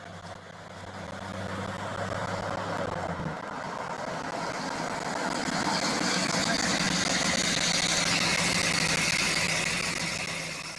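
1955 Chevrolet Apache's 383 stroker V8 running through its new exhaust as the pickup drives up. It grows louder over the first half, stays loud, and fades out at the very end.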